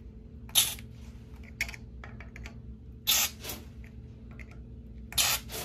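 Water spurting with a hiss from the test cocks of a Watts 3/4-inch double check backflow preventer, three short bursts about a second in, about three seconds in and near the end, as each cock is opened briefly to blow debris out of the port before testing.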